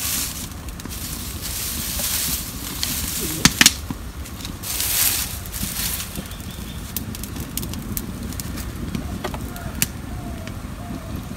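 Dry straw and twigs rustling as they are pushed into the fire-hole of a mud stove, with the fire crackling. Two sharp snaps come about three and a half seconds in, and scattered crackles follow.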